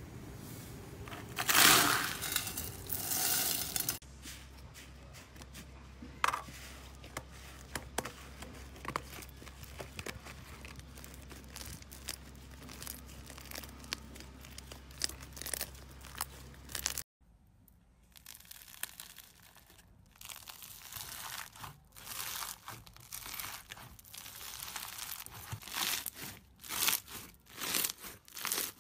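Close-up slime handling: pink soap curls crunching as they are squeezed, then green slime worked with small sticky clicks over a low steady hum, then blue floam crackling as its foam beads are kneaded.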